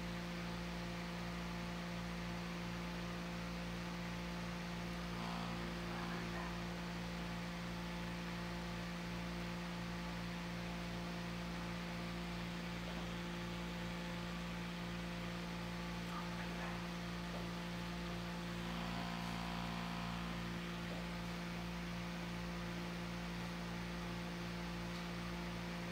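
Steady electrical mains hum over faint background hiss, unchanging throughout.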